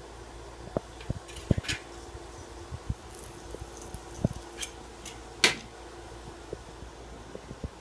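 Scattered light knocks and clicks with a few short scrapes, the loudest about five and a half seconds in, from hands and tools handling a glass aquarium, over a steady low hum.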